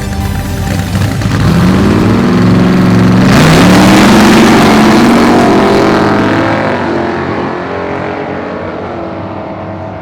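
Drag-racing car accelerating hard past. Its engine pitch climbs, drops once at a gear change and climbs again. It is loudest about four seconds in, then fades away.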